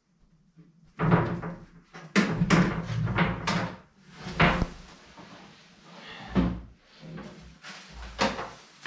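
Large boards and panels being pulled out and shifted around, knocking and scraping against each other: a dense run of bangs and knocks in the first few seconds, then a few separate knocks.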